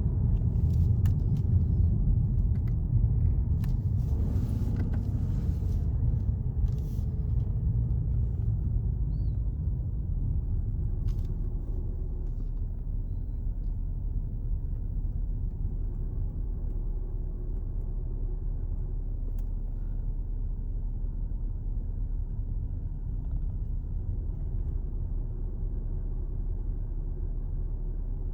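Low rumble and hum inside the cabin of a BMW 330d (G20) at low speed with the brakes applied, louder for the first ten seconds or so, then settling lower. The owner hears a vibrating buzz here, like a phone vibrating, that stops when the brake pedal is released, and traces it to the brake vacuum pump's working tempo carried along the vacuum pipe into the firewall at the brake booster.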